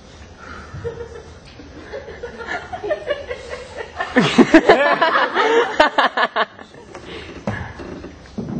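A voice laughing loudly, with sliding pitch and then a quick run of short 'ha-ha' bursts, and quieter laughs around it.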